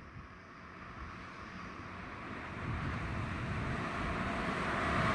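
A passenger train approaching along the line, its rushing engine and wheel noise growing steadily louder.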